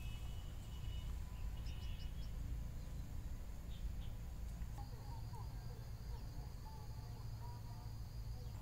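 Outdoor ambience of insects and birds: short high chirps in the first couple of seconds, then a steady high insect whine from about halfway, with a few faint bird calls, over a low steady rumble.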